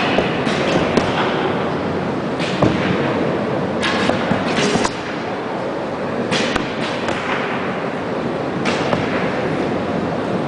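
Arrows striking the target one after another: a series of sharp hits at irregular intervals, some close together, heard close up from the target.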